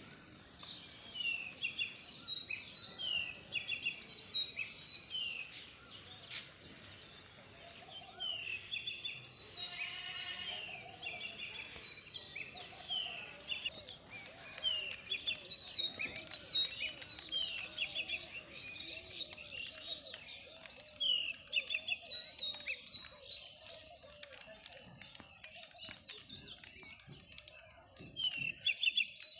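Small birds chirping over and over in quick clusters of short, high, falling notes, with fainter lower calls underneath.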